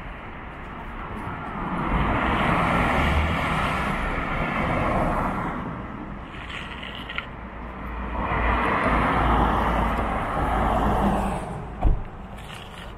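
Two vehicles passing one after the other, each a swell of road noise that rises and fades over a few seconds. A short knock comes near the end.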